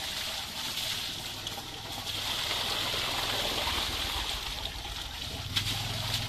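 A bucket of water poured into a wheelbarrow of wet sand: a steady splashing gush that grows stronger about two seconds in, with a knock near the end.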